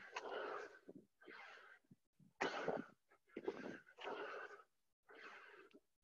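A man panting hard from the exertion of doing burpees: about six heavy, rasping breaths in and out, each under a second long.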